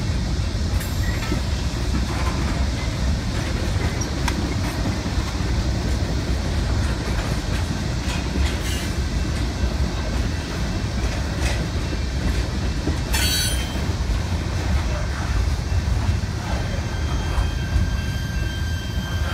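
Freight train of tank cars and a covered coil steel car rolling past: a steady heavy rumble of steel wheels on rail with scattered clanks, and a brief high metallic squeal about 13 seconds in.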